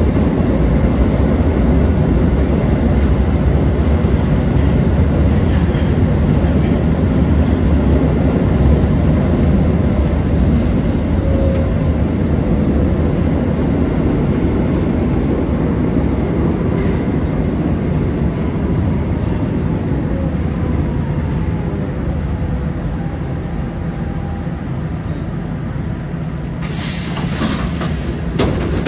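Lisbon Metro train heard from inside the carriage, running through a tunnel and slowing into a station. A dense low rumble of wheels and running gear eases off gradually, with faint whining tones gliding in pitch. Near the end, as it comes to a stop, there is a short, sharp hiss of air.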